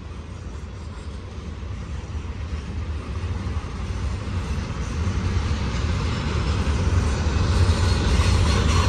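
Double-stack intermodal container train rolling past, a steady low rumble of wheels on rail that grows steadily louder.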